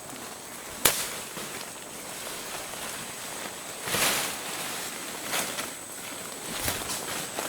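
Footsteps on dry leaves and twigs, with a sharp snap about a second in and a longer dry crunch about four seconds in, then a few lighter cracks.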